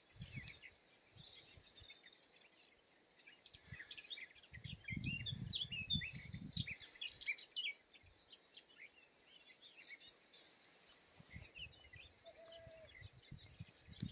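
Small birds chirping and twittering faintly in many short, high calls, with a low rumble for about three seconds starting around four seconds in.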